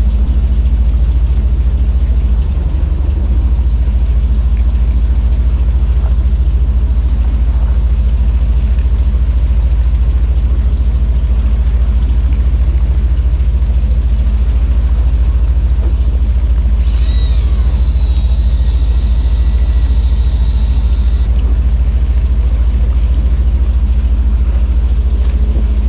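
Fishing boat's engine running steadily, a loud, even low rumble. About two thirds of the way in, a high-pitched whine comes in, dipping in pitch at its start, and holds for about four seconds.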